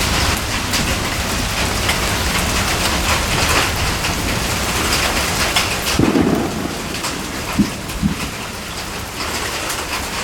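Steady rain falling and pattering on surfaces, a dense even hiss. Two sharp taps about half a second apart come a little over two-thirds of the way through.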